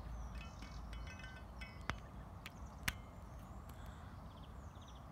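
Two sharp clicks about a second apart from the adjustable torque wrench as its setting dial is handled, over small birds chirping and trilling and a low outdoor rumble.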